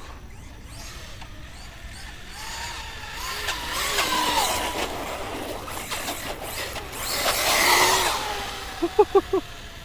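Electric motor of a 1/10-scale Pro-Line Pro-MT 4x4 RC monster truck running on a 4S battery. It whines past twice, its pitch gliding as it speeds up and slows, and a few short yelps sound near the end.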